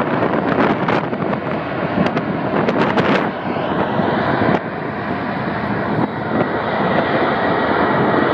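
Airbus A330's twin jet engines at takeoff power during the takeoff roll: a loud, steady rush of engine noise with a faint high whine, and wind buffeting the microphone in the first few seconds.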